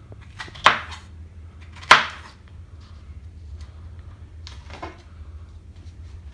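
Chef's knife slicing a red bell pepper into strips on a plastic cutting board: two sharp knocks of the blade on the board in the first two seconds, then a few fainter cuts, over a steady low hum.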